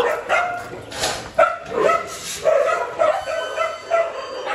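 A pack of Bắc Hà dogs barking and yipping together in a dense, overlapping chorus of short high calls, excited at being let out to run.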